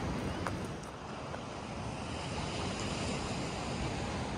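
Steady rush of moving water, with wind on the microphone.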